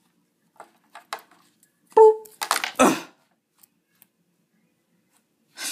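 Plush toys being knocked together and toppled by hand: faint soft knocks, then a short loud burst about two seconds in and a few rustling bursts after it.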